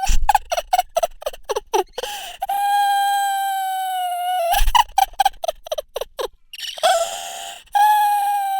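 A person crying in loud, exaggerated fashion: a run of quick gasping sobs, about five a second, then a long high wail held for about two seconds. The pattern repeats, with the second wail starting near the end.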